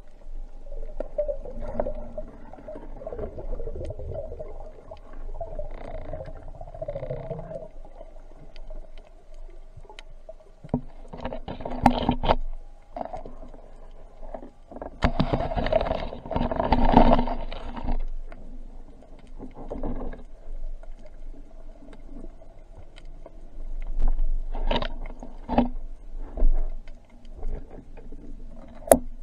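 Muffled underwater sound picked up by a diver's camera: a steady low hum of water and movement, broken by several louder rushes of water noise and a sharp click near the end.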